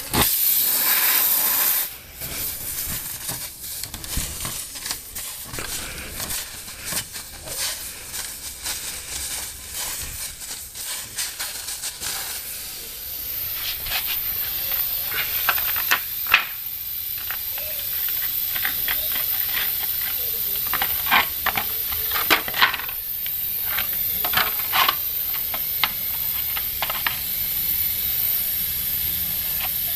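Air hissing out of a punctured car tire while the tire-plug kit's tool is worked in and out of the hole, with scraping and clicking from the tool. The hiss is loud for the first couple of seconds, then comes back as a steady hiss from about halfway through.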